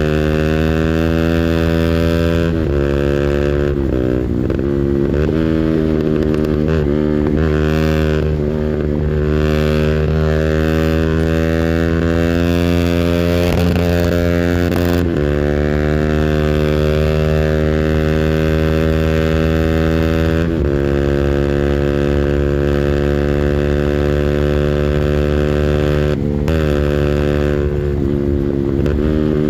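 200cc engine held at high revs against its rev limiter, a loud steady note that sags briefly and recovers a few times and steps down and back up around the middle.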